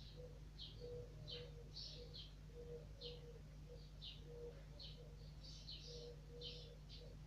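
Faint birdsong in a garden: a small bird repeating short high chirps about twice a second, over a series of short low notes and a steady low hum.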